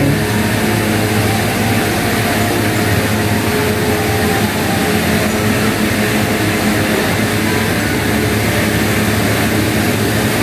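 Steady drone of an electric fan running: an even rush of moving air over a constant motor hum.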